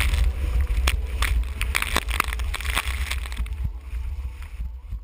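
Wind buffeting an action camera's microphone mounted on a windsurf boom, with water splashing and slapping against the board as it skims the chop in irregular bursts. The sound fades down gradually.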